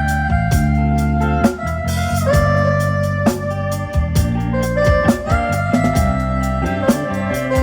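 Instrumental live band music: a keyboard lead in an organ-like voice plays held notes that slide between pitches, over bass and a steady drum beat.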